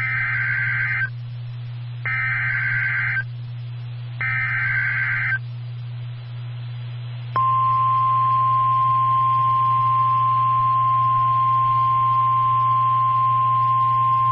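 Emergency Alert System SAME header sent over NOAA Weather Radio: three short bursts of screechy digital data, a second apart, encoding the Severe Thunderstorm Warning. About seven seconds in, the single steady 1050 Hz weather radio warning alarm tone starts and holds. A steady low hum runs underneath.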